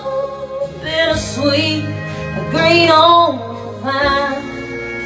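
A woman singing a country ballad over backing music, her voice bending and sliding through a drawn-out line.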